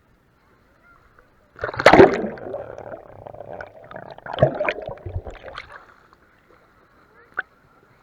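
A swimmer splashing in sea water close to the microphone: a loud splash about two seconds in and another about four and a half seconds in, with sloshing between them.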